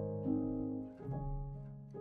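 Slow, gentle instrumental background music with held notes. New notes come in about a quarter-second in and again about a second in.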